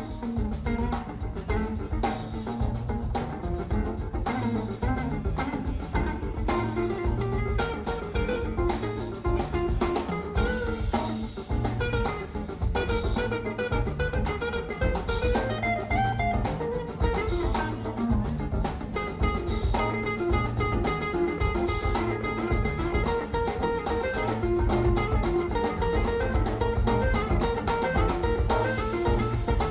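Background music: instrumental jazz-blues with guitar and drum kit over a steady beat.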